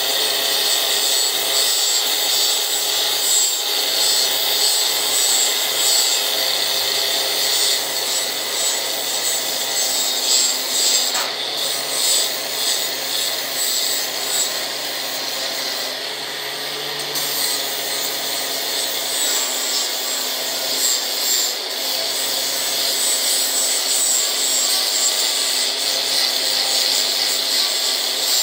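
Angle grinder abrading rust off a steel pipe, a continuous high-pitched grinding over the steady whine of the motor.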